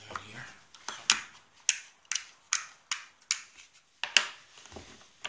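Small metal objects, the lock and its tools, being handled and set down on a bench: a string of sharp clicks and clacks, about a dozen, loudest about a second in and again a little past the middle.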